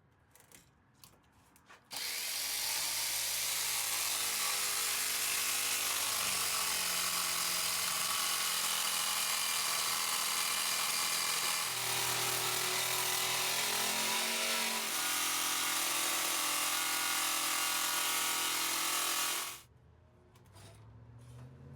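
Electric saber saw (jigsaw) cutting 14-gauge sheet steel: a few light clicks, then the saw starts about two seconds in and runs steadily, its motor pitch wavering a little partway through, before cutting off suddenly near the end.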